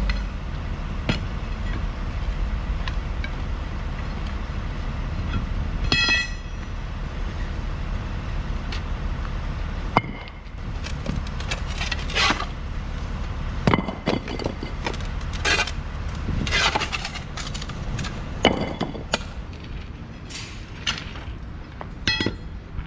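Excavator diesel engine running steadily, with a short metallic clink about six seconds in and a string of sharp knocks and cracks from about ten seconds on, as paving tiles are broken out and moved.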